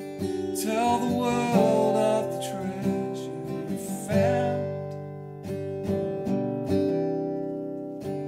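Steel-string acoustic guitar strummed in ringing chords, with a man singing over it for the first few seconds before the guitar carries on alone.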